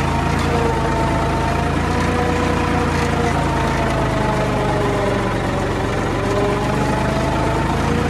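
Farmtrac 60 Super Max tractor's diesel engine running steadily.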